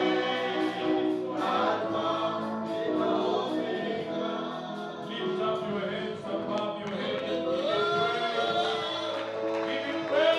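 Gospel music with a choir singing together, several voices holding and gliding between long notes.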